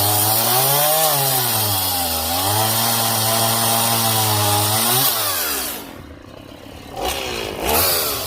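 Stihl MS 170 two-stroke chainsaw running at full throttle, its pitch sagging and recovering as it cuts wood. About five seconds in it drops back to idle, then it is revved up twice near the end.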